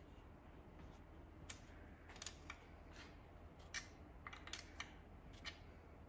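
Faint, irregular small metal clicks, about a dozen, from hand tools turning the band adjusting screw and locknut on a 727 automatic transmission case.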